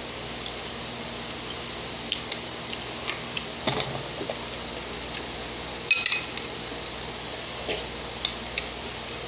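A spoon clicking and clinking against a bowl of rice in water as it is scooped, in scattered light taps. The loudest clink, with a short ring, comes about six seconds in.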